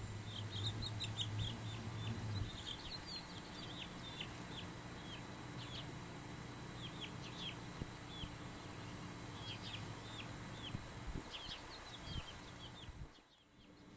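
Young chicken chick peeping: a string of short, high peeps, each falling in pitch, coming in irregular clusters of a few a second.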